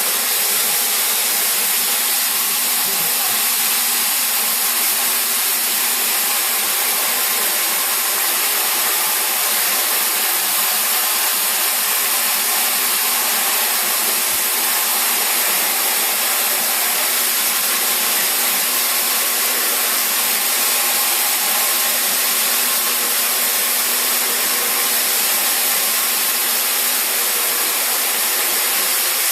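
Floor grinder running steadily as it grinds wet terrazzo: a loud, even hiss with a faint steady hum under it.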